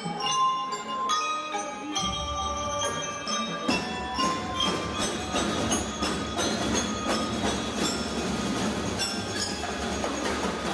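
Drum and lyre corps playing: mallet keyboard percussion rings out a melody of clear, bell-like notes, low drums come in about two seconds in, and from about four seconds the full drum line plays densely under the mallets.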